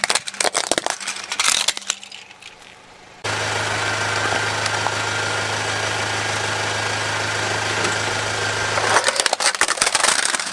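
Plastic toy trucks cracking and snapping under a car tyre for about two seconds. After a sudden cut, a car engine idles steadily. Near the end a larger plastic toy truck cracks and breaks under the wheel.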